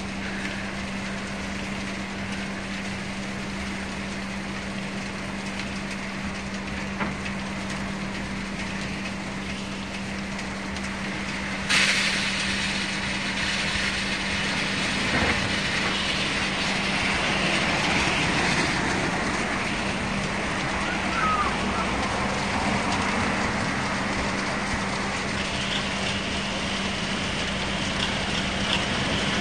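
Kärcher roll-over gantry car wash running, with a steady machine hum. About twelve seconds in, a loud hiss of water spray starts suddenly and keeps going.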